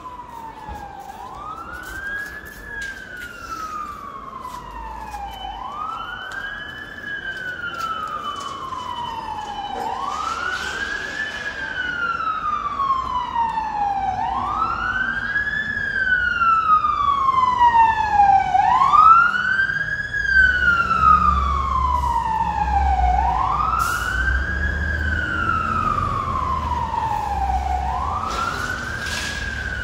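Emergency vehicle siren sounding a slow wail: each cycle rises quickly and falls more slowly, repeating about every four seconds. It grows louder as it approaches, and a second siren overlaps briefly in the middle.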